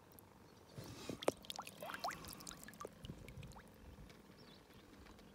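Faint splashing and dripping water as a crappie is lifted out of the lake by its lip, with a few small clicks and quick rising plinks about a second in.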